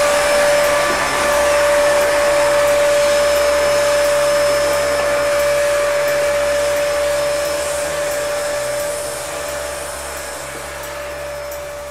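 Vacuum cleaner running with a steady whine as its brush nozzle is drawn over a sanded epoxy primer coat, sucking up the sanding dust. The sound gradually fades in the second half.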